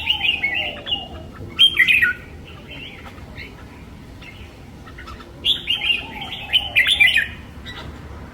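Red-whiskered bulbul singing in bursts of fast, jumbled chirping phrases: one at the start, a short one about two seconds in, and a longer one from about five and a half seconds.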